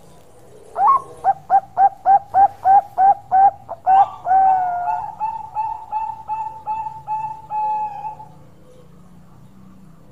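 Bangkok-type zebra dove (perkutut) singing its cooing song. It opens with a rising note and a fast run of about eleven short coos, about three a second. Then comes a longer warbled coo and a string of quicker pulsed notes, which stops about eight seconds in.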